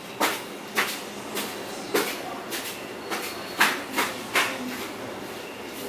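A run of sharp knocks or clacks, unevenly spaced at about two a second.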